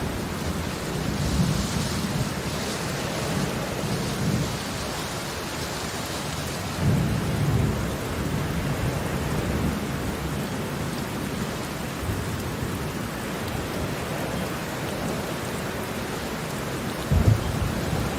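Heavy rain falling steadily, with low rumbles swelling and fading every few seconds, the strongest about seven seconds in and near the end.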